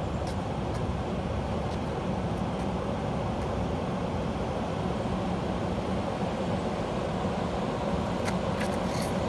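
Steady low rumble with a constant hum, from a running car engine, and a few faint clicks near the end.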